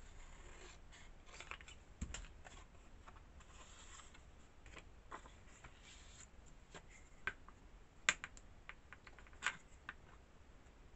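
Paper being trimmed with scissors and handled: faint rustling and snipping with scattered light clicks and taps, the sharpest about two seconds in and a few more near the end.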